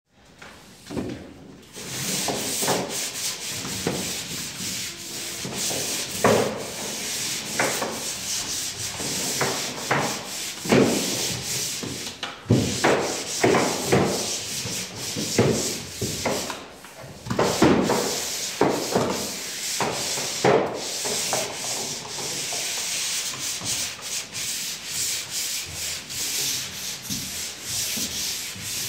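Dried drywall compound being hand-sanded with a flat sanding pad on a pole sander: a rasping rub in repeated back-and-forth strokes. The strokes are louder and deeper-scraping for a stretch in the middle.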